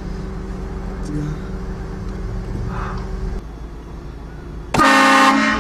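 A car's engine running steadily, then near the end a train horn fitted to the car blasts suddenly and loudly, several steady tones sounding together as a chord.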